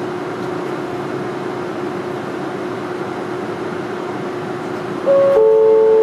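Inside a Manyosen MLRV1000 low-floor tram running along the line: a steady rumble with a faint constant hum. About five seconds in, a louder two-note electronic chime sounds, a short higher note and then a held lower one, the chime that comes before the automatic stop announcement.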